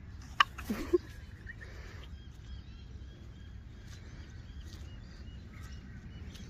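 Outdoor wind rumble on the microphone with small birds chirping faintly and repeatedly. About half a second in there is one short sharp sound, then a brief low cry.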